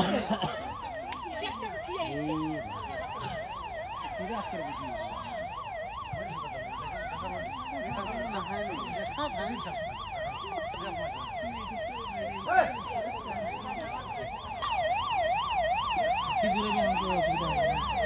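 An emergency vehicle's siren on a fast yelp, its pitch sweeping up and down about two to three times a second without a break. A single sharp knock cuts through about twelve and a half seconds in.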